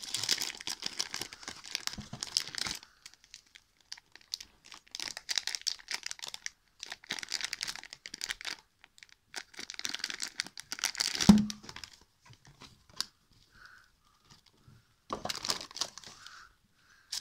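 Clear plastic wrap crinkling and tearing as it is pulled off a new 6x6 speed cube, in four bursts with pauses between them. A single sharp knock about two-thirds of the way in is the loudest moment.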